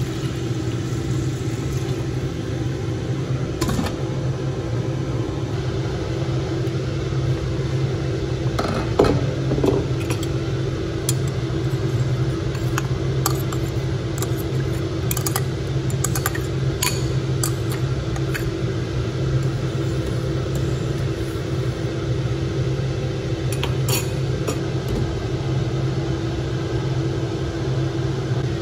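A steady low mechanical hum, with scattered light clinks of a spoon and cookware against a steel pot and glass lid. The clinks come about nine seconds in, in a cluster a few seconds later, and once more near twenty-four seconds.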